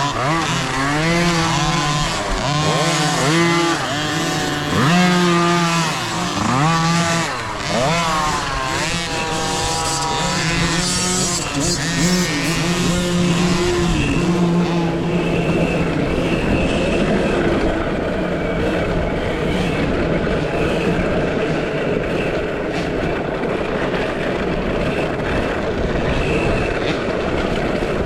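Youth motocross bikes on track, the 2023 KTM SX-E5 electric among them: motor pitch rises and falls again and again with the throttle for about the first fourteen seconds. After that the sound settles into a steadier rush of wind and tire noise with a faint high tone.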